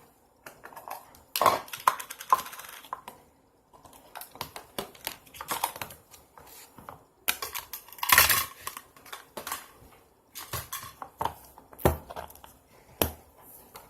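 Slime and its plastic tubs being handled: irregular wet pops, crackles and sharp plastic clicks, the loudest bursts about a second and a half in, near the middle and about two seconds before the end.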